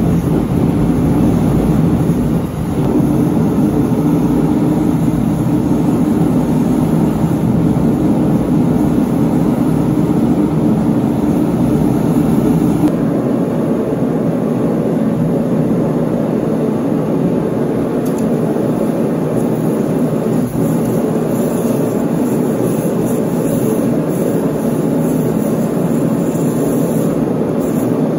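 Propane forge burner running with a loud, steady rushing noise. About halfway through, the deep rumble drops away and a thinner, even rush carries on.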